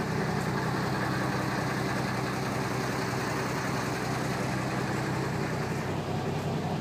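Neoplan N116 Cityliner bus's Mercedes V8 diesel engine idling steadily.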